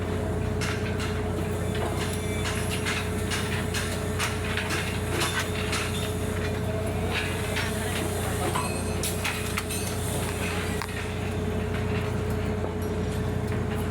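Engine of a construction crane or hoist running steadily, a constant hum with a held tone, under scattered metallic clicks and knocks.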